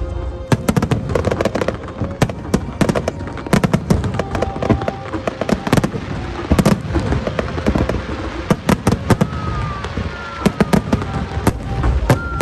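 Dense barrage of aerial fireworks shells bursting, with many rapid, overlapping bangs and crackles.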